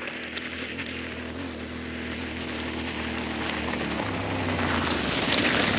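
Yamaha Tenere 700's parallel-twin engine running, growing steadily louder, with its pitch stepping up about four seconds in.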